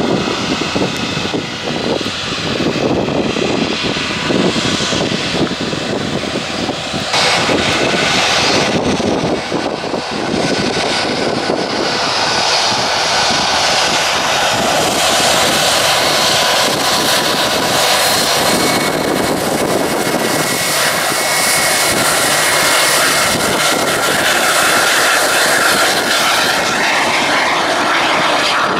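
Ryanair Boeing 737-800's jet engines at takeoff power as it lifts off. The rushing engine noise rises about seven seconds in and stays loud, with a steady high whine over it in the second half.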